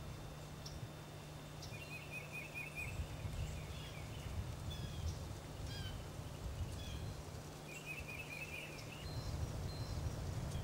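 Small songbirds chirping in the woods, with short quick trills of repeated notes about two seconds in and again near eight seconds, over a low rumble.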